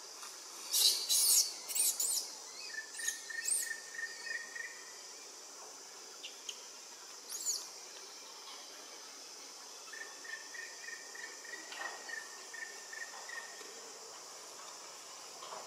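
Steady chirring of insects in the forest canopy, with short high arching chirps, the loudest about a second in and another about halfway. A thin steady tone is held for a few seconds twice.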